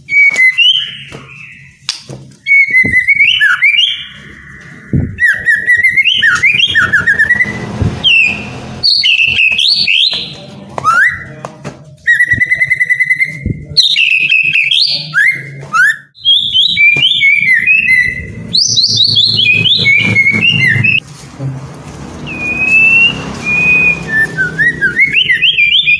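White-rumped shama singing: a long run of loud, varied whistled phrases with notes that slide and leap up and down, separated by short pauses.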